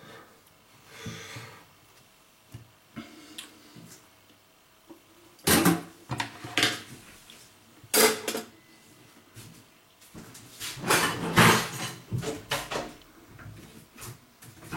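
Household handling noise in a small room: several loud, sudden rustling and clattering bursts, about a third of the way in, again a little later, and a longer cluster past the two-thirds mark.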